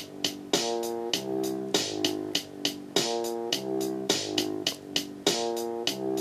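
Electronic drum-and-synth beat sequenced by the AM808 Arduino MIDI sequencer. Drum hits and short synth chords fall on a steady beat about every 0.6 seconds, with the chord changing from beat to beat and a louder accent about every two and a half seconds.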